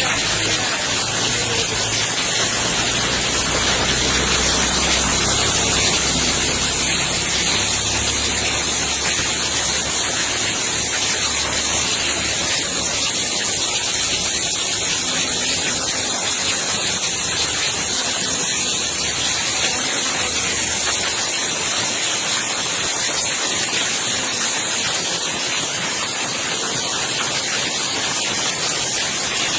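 Heavy rain and running floodwater, a steady rushing hiss.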